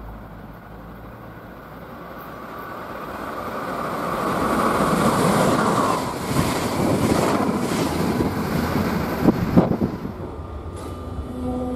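Zurich S-Bahn double-deck commuter train approaching and running along the platform: rail noise builds over the first few seconds to a peak about halfway, with a few sharp wheel clacks near the end.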